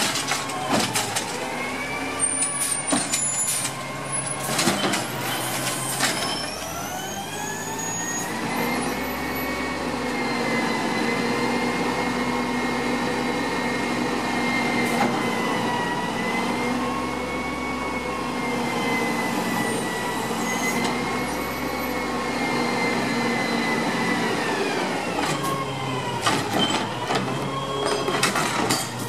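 Automated side-loader recycling truck running its hydraulics: a whine rises about six seconds in, holds steady with a slight waver for some twenty seconds, then falls away. Metal clanks and knocks come at the start and again near the end as the lift arm picks up and tips a recycling cart into the hopper.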